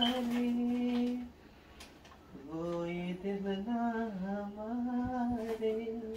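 A person humming a tune without words: a long held note, a break of about a second, then a melody that rises and falls.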